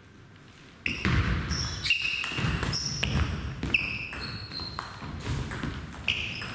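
Table tennis rally: the celluloid-type ball clicks sharply off the bats and the table, a hit or bounce every half second or so, each with a short bright ring. It starts about a second in, over the low background of a large sports hall.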